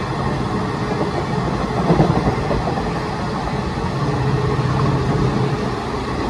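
A passenger train of red LHB coaches passing close by on the adjacent track: a steady, loud rumble of wheels on rail with a low hum underneath.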